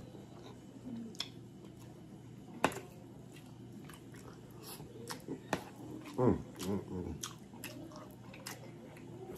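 A person chewing mouthfuls of fried rice and egg foo young, with scattered sharp clicks through the chewing.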